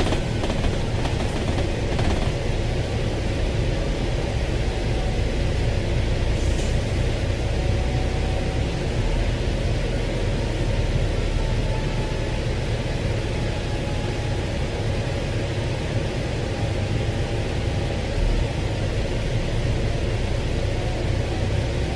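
Double-deck bus heard from inside while driving: steady engine rumble and road noise, with a faint whine that slowly drifts in pitch.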